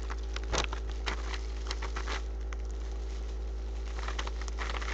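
Packaging being handled, with irregular crinkling and rustling and light clicks, over a steady low hum.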